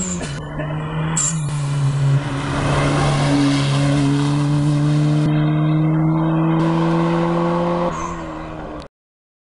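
Small hatchback rally car's engine at high revs, pulling hard as it accelerates away. The note dips briefly at the start, then holds high and climbs slowly for several seconds, fades about eight seconds in and cuts off abruptly.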